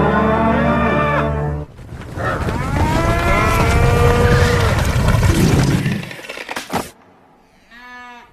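Several overlapping cow moos, each gliding in pitch, following a dense sustained chord that cuts off about two seconds in. A sharp click comes near the end, then a brief warbling tone.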